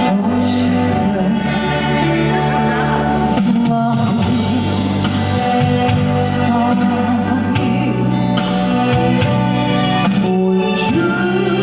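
Music with long held organ-like chords and a melody line that sounds sung, played at a steady level through a stage sound system.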